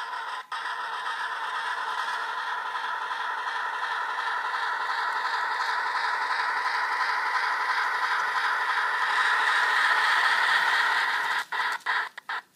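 Loksound sound decoder in a brass Baltimore & Ohio P7 model steam locomotive, playing steady steam-exhaust sound through its small speaker as the model runs, slowly growing louder. Near the end the sound cuts out and back in several times, a sign of dirty track interrupting the power pickup.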